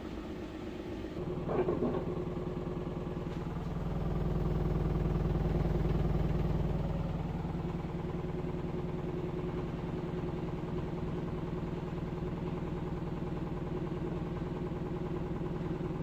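LG F4V310SNEH direct-drive front-loading washing machine running mid-cycle: a steady motor hum that swells for a few seconds about four seconds in. A short, sharper noise comes about one and a half seconds in.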